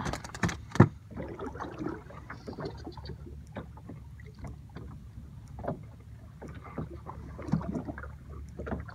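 Water slapping against the hull of a small metal boat rocking at rest, with a steady low wind rumble and scattered small knocks and clicks. A few sharp knocks come in the first second, the loudest just under a second in.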